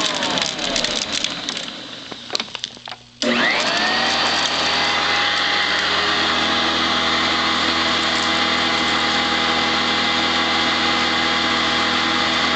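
Eureka ESP direct-air commercial upright vacuum switched off, its motor winding down with a falling whine. About three seconds in it is switched back on, winding up with a rising whine and then running steadily.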